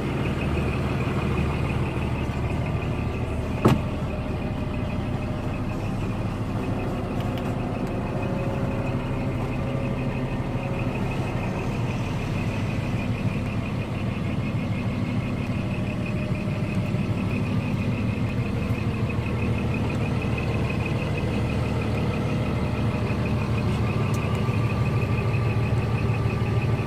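Scania R420 truck's diesel engine idling steadily, heard from inside the cab, with a steady high whine above it. A single sharp click comes about four seconds in.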